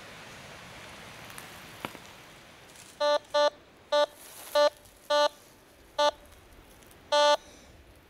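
Metal detector giving a run of seven short beeps of the same pitch from about three seconds in, the last one held longer, as its coil sweeps over the leaf litter. The beeps are target signals from buried metal.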